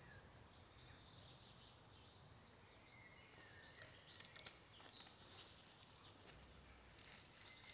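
Near silence: faint outdoor background with a few quiet, distant bird chirps in the second half.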